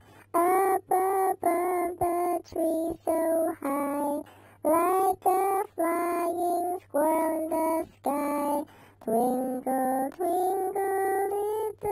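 A high-pitched, chipmunk-like singing voice, a voice sped up and raised in pitch by a talking-character app, singing a slow song in short separate syllables about two a second.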